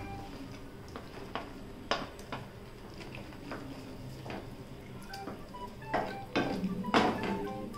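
A cooking utensil clinking and scraping against a pan as cooked pasta is stirred into a creamy sauce. The clinks come irregularly and grow louder and more frequent near the end.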